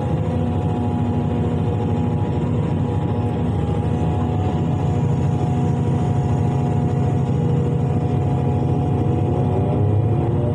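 Excavator diesel engine running steadily under load, its pitch starting to rise near the end as it revs up.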